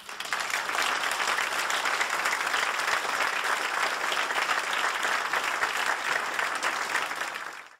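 Audience applauding: dense, steady clapping that stops abruptly shortly before the end.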